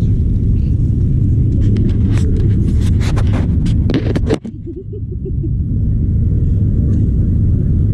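A steady, loud low rumble with a run of sharp clicks about two to four seconds in. The rumble cuts out briefly just after the clicks, then builds back.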